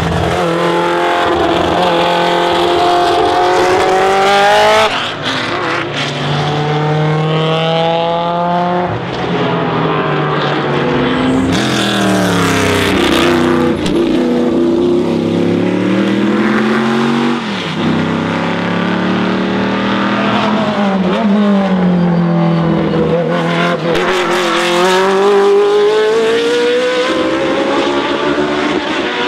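Racing car engine under hard acceleration, its pitch climbing through each gear and dropping sharply at every upshift. It slows through the middle, then pulls up through the gears again.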